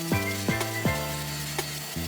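Background music with a steady beat: sustained electronic chords over a punchy kick drum.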